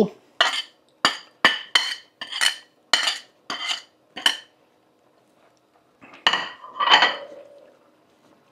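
A metal utensil clinking against a cooking pot: about ten quick, ringing taps over the first four seconds, then two louder clanks a couple of seconds later.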